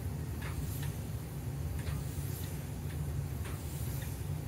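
Small electric motor and propeller of a lightweight model plane running in flight: a steady low buzz with faint, irregular ticks.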